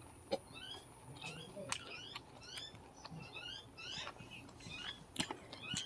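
Small birds chirping in quick, repeated short notes, with scattered sharp clicks.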